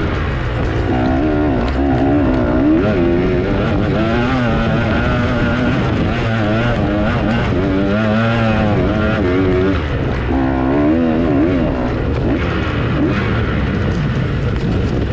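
Dirt bike engine being ridden hard off-road, its revs climbing and dropping again and again with throttle and gear changes.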